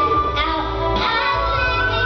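Young female voices singing a musical-theatre song over instrumental accompaniment, holding a long note in the second half.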